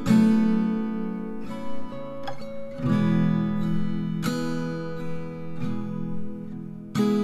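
Background music: acoustic guitar strumming chords that ring on, a new chord struck every second or two.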